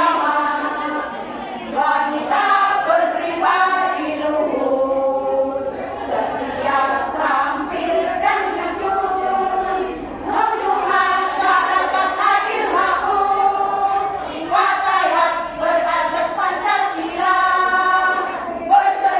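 Women's choir singing together in held, sustained notes, phrase after phrase, with brief breaths between phrases about two seconds in and about ten seconds in.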